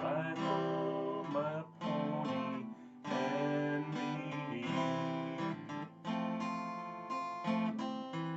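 Acoustic guitar playing the closing bars of a slow cowboy song, several strummed chords each left to ring.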